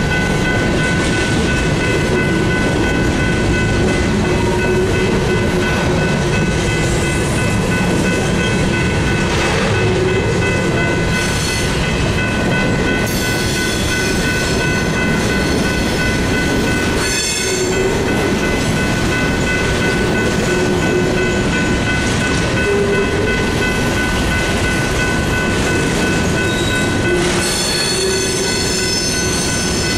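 A freight train of empty covered grain hopper cars rolls through a grade crossing while the crossing's General Signals Type 3 electronic bell rings steadily. High-pitched wheel squeal comes in around the middle and again near the end.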